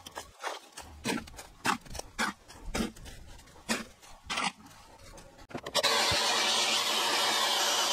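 Repeated short scraping strokes as wet concrete is smoothed around a metal post base. About three-quarters of the way in, an electric drill starts, running steadily and loudly as it bores a large round hole into a timber beam.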